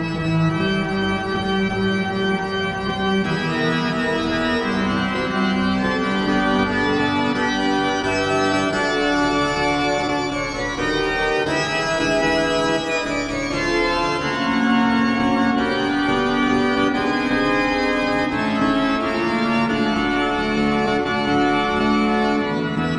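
Organ music playing held chords that change every few seconds.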